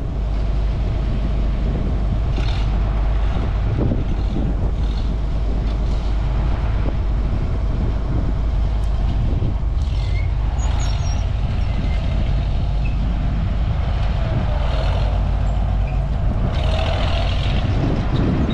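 A tractor engine running steadily with a deep, even rumble and no change in speed.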